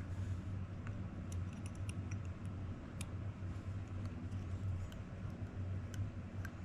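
Scattered light clicks and taps of small parts and tools being handled, over a steady low hum.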